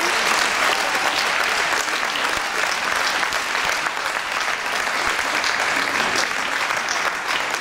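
Audience applauding steadily, with dense clapping throughout.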